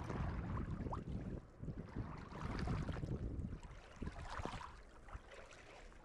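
Small waves lapping and splashing against shoreline rocks in an irregular wash, with a low rumble of wind on the microphone.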